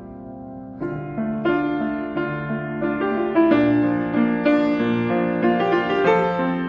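Piano playing a slow, tender piece. A held chord fades at first, then about a second in new notes come in and the playing grows fuller and louder.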